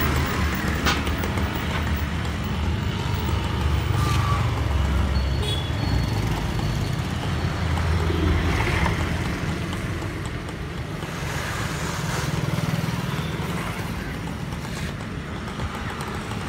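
Street background noise: a steady low rumble of road traffic, with a few faint clicks and knocks.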